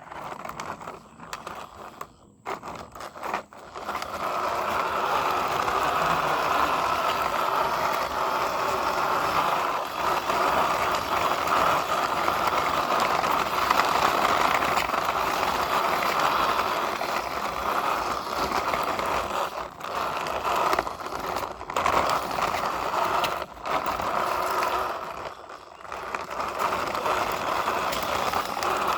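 Toy construction vehicles scraping and rattling through sand, a steady noise that sets in about four seconds in and drops out briefly a few times.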